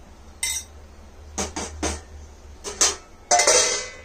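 Steel spoon clinking against a glass bowl while scooping out filling: a series of sharp clinks, then a longer ringing scrape near the end.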